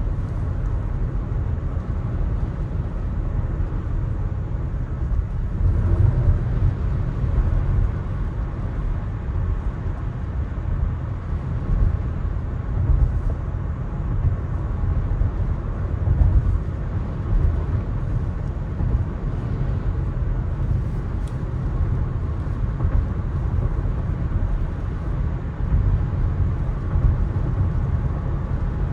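Road noise from a Tesla electric car driving on wet pavement: a steady low rumble of tyres with a light hiss above it.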